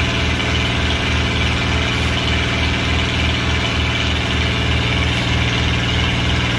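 Enclosed lifeboat's diesel engine idling steadily, with a low throb about three times a second.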